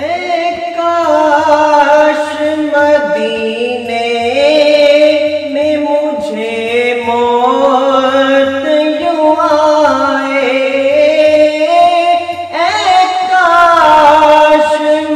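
Male devotional naat singing: long gliding, held notes without clear words, with several vocal lines layered over one another. A soft low pulse repeats about once a second underneath.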